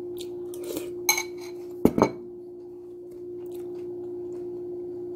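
Cutlery clinking against a dish, a ringing clink about a second in, then two sharp knocks in quick succession just before two seconds, over a steady hum.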